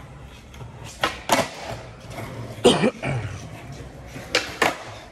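Skateboard wheels rolling on a concrete floor, with sharp clacks of the board's tail and wheels striking the concrete as tricks are popped and landed: two quick clacks about a second in, the loudest near the middle, and another pair near the end.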